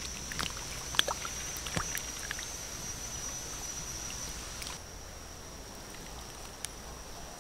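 Light splashing and trickling of shallow water, with a few sharp clicks in the first two seconds, over a steady high-pitched insect drone. The splashing stops about five seconds in, leaving the insect drone.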